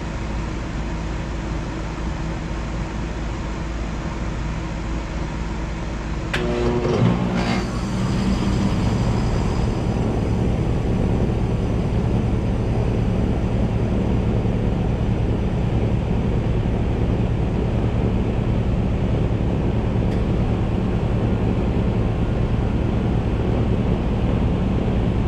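Outdoor heat pump units in heat mode: a steady hum of one unit already running, then about six seconds in a click and a quick rising whine as a 2005 Ruud Achiever heat pump's compressor and fan start up. After that the combined hum is louder and steady.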